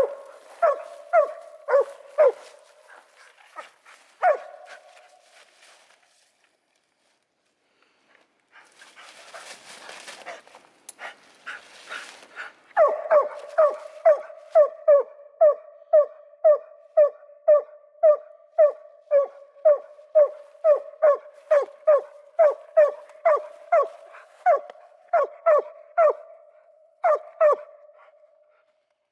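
A hunting dog barking in short, evenly spaced barks, about two a second. The barking breaks off around four seconds in, with a few seconds of hiss-like noise in the pause, then picks up again at a steady pace for the second half.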